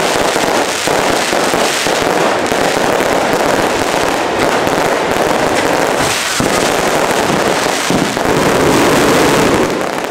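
Fireworks going off in a dense, unbroken barrage of crackles and bursts, loudest near the end.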